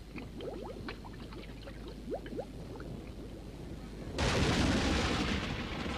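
Crude oil bubbling and gurgling at a ground seep, many short rising blips. About four seconds in, a sudden loud rushing noise takes over.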